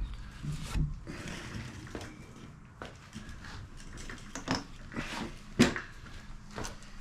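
Scratchy brushing and scattered clicks and knocks of hand-tool work on a bicycle frame, as the bottom bracket shell's threads are scrubbed clean with a stiff brush; the sharpest knock comes about five and a half seconds in.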